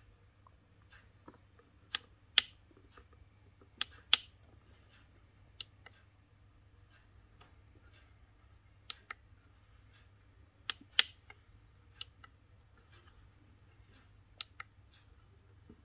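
Push-buttons on a Caterpillar 320D excavator's monitor keypad clicking as they are pressed: about ten sharp clicks, several in quick pairs, over a faint steady hum.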